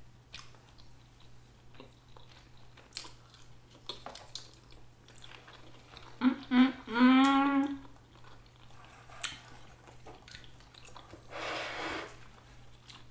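Close-up mouth sounds of eating sushi: soft chewing with small wet clicks. About six seconds in comes a hummed "mmm", two short hums and then a longer one. Near the end there is a short breathy noise.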